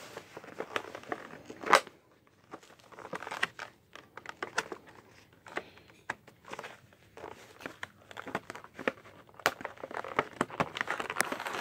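A plastic blister pack on a cardboard backing being handled and turned over, crinkling and clicking irregularly, with a sharp click about two seconds in and busier crinkling near the end.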